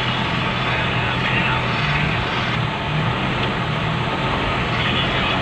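Isuzu Elf truck's diesel engine roaring steadily as it climbs under a 9-cubic-metre load of sand, with a brief slight dip in loudness near the middle.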